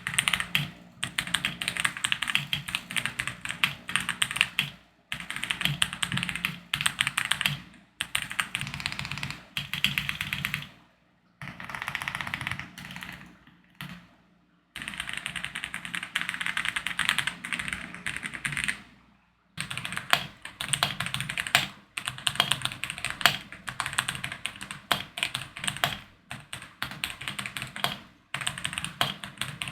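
Fast typing on an OM65 65% mechanical keyboard with Boba U4T tactile switches and MOA keycaps: dense runs of key clacks broken by short pauses every few seconds.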